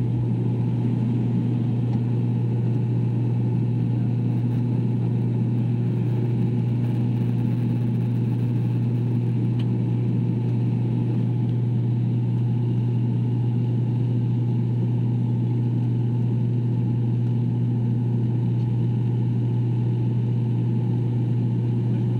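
Turboprop airliner's engines and propellers running at climb power just after takeoff, heard inside the passenger cabin: a steady low hum on one strong pitch with fainter overtones, unchanging throughout.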